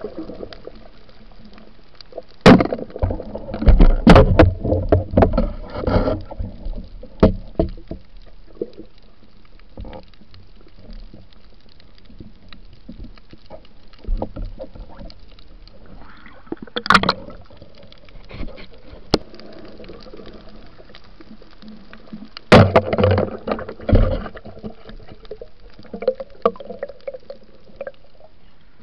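Muffled water sounds from an underwater camera worn by a diver: water sloshing with knocks and bumps against the housing. These come in clusters about two to six seconds in, again around seventeen seconds, and between twenty-two and twenty-four seconds.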